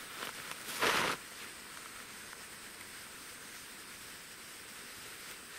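Faint steady hiss, with one short rustle about a second in.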